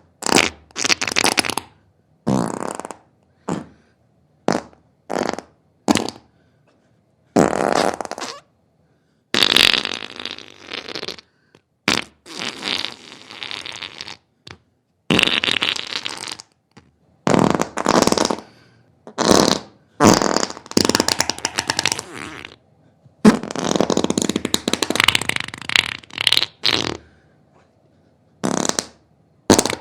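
A series of fart sounds, one after another with short silent gaps. Some are brief pops; others are drawn-out, fluttering farts lasting a couple of seconds, the longest about three-quarters of the way through.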